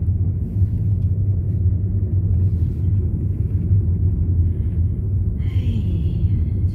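Steady low rumble of road and engine noise inside a moving car's cabin, with a brief higher-pitched sound near the end.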